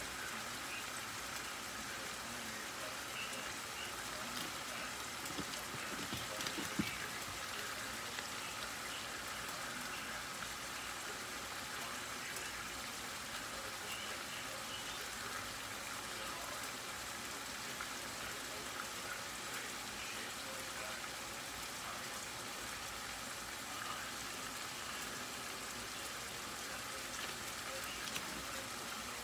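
A covered pot simmering on the stove: a steady, pattering hiss as steam escapes from under its glass lid.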